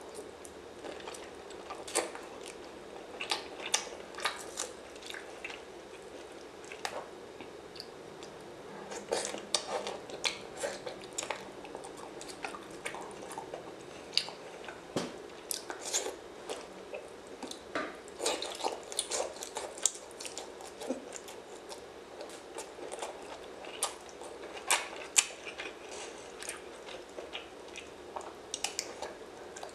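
Close-miked mukbang eating: a person chewing and biting food, with many irregular sharp crunches and clicks.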